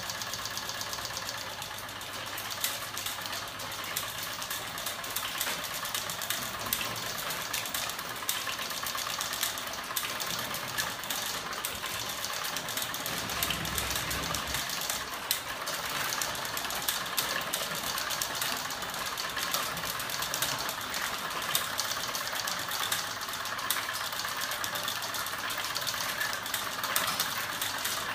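Homemade electric-motor-driven crank-and-linkage flapping machine running at speed, its metal linkages and pivots making a fast, dense rattle of clicks.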